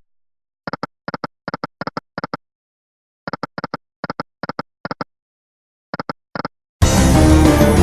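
Short electronic click blips from an online slot game's interface, coming in pairs at about three a second, in three runs separated by silence. Near the end the slot game's music starts again.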